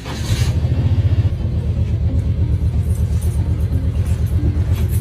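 A loud, low rumble with a fast, steady pulse.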